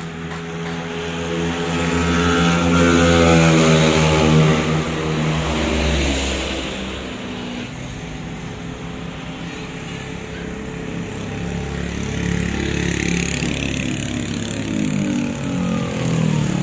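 Yamaha Mio scooter's single-cylinder engine accelerating, its pitch climbing for the first few seconds. It then eases off to a steady run and picks up again near the end.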